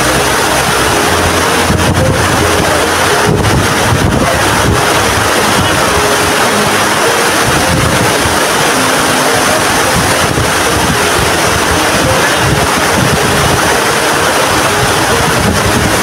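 Waterfall pouring onto rocks close by: a loud, steady rush of falling water, with wind buffeting the microphone.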